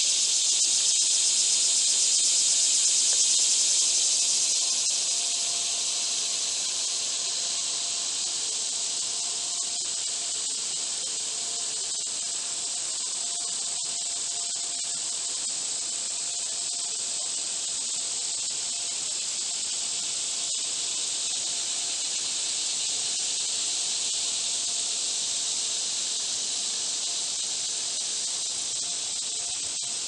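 Dense insect chorus of crickets and katydids making a steady, high-pitched buzzing hiss. It is a little louder for the first four seconds or so, then settles slightly quieter.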